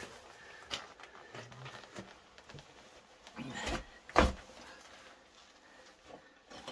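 Scuffs and knocks of someone moving over loose limestone rubble on a cave floor, a few separate ones with a low thud in each, the loudest a little after four seconds in.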